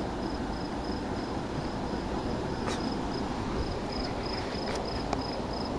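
A cricket chirping in an even rhythm, about four high chirps a second, over low handling noise with a few light clicks.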